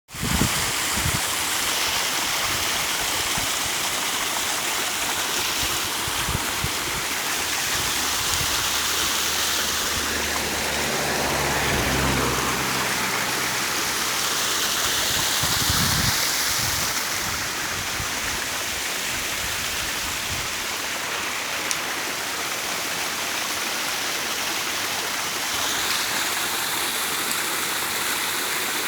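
Water from a small natural waterfall splashing and rushing steadily. A low hum sounds for a few seconds near the middle.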